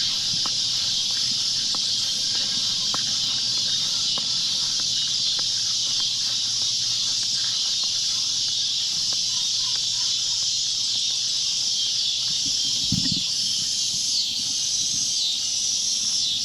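Loud, steady cicada chorus buzzing, with a brief low thump about 13 seconds in.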